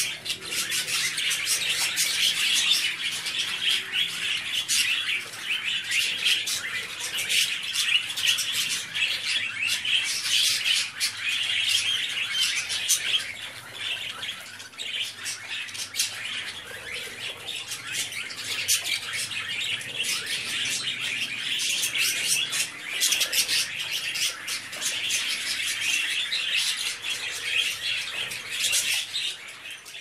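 A flock of budgerigars chattering continuously, a dense mix of warbling and many sharp, overlapping chirps.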